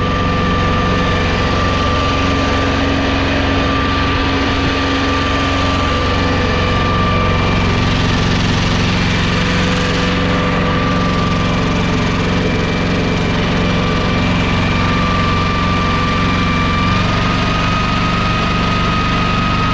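Small Kubota compact tractor's diesel engine running steadily under way on the road, with a steady high whine over the engine note that rises slightly near the end.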